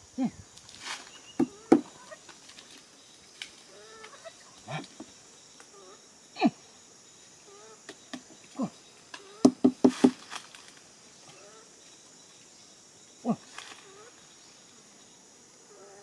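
Steady high insect drone in the background, broken by scattered short, sharp knocks and clicks, with a quick run of four about ten seconds in.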